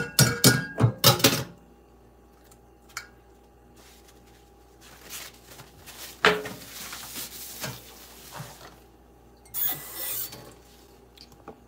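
Dishes and kitchenware clattering at a kitchen sink, a quick run of knocks at the start. About six seconds in there is another knock, then a couple of seconds of rustling as a towel is handled, and a short hiss near the end.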